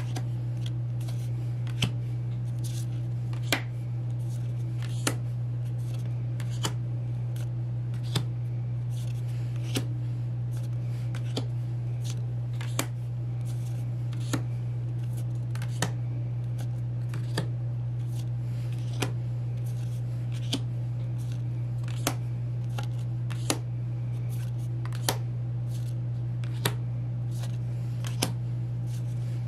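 Glossy photocards being flipped one at a time through a hand-held stack, each card giving a sharp snap about every second and a half, with fainter card rustles between. A steady low hum runs underneath.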